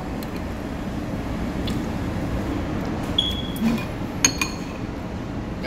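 Spoon and fork clinking against a bowl: a few sharp, ringing clinks, the loudest about four seconds in. Underneath is a steady hum of room noise.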